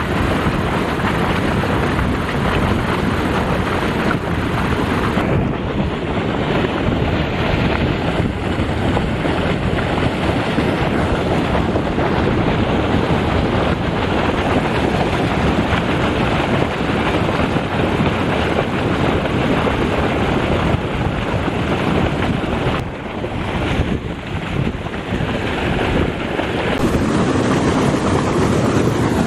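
Wind buffeting the microphone over the steady rush of churning canal water, a loud, even noise with no distinct events.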